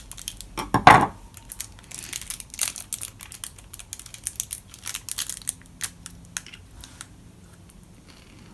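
Thin plastic candy wrapper crinkling and tearing as it is unwrapped by hand, with a louder rip about a second in. The crackling thins out near the end.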